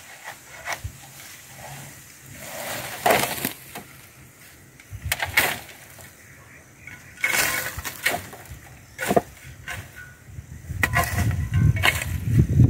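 Irregular scraping, rustling and knocks of a long-handled hand tool gathering cut weeds and pitching them onto a loaded wheelbarrow, with denser scraping against the soil near the end.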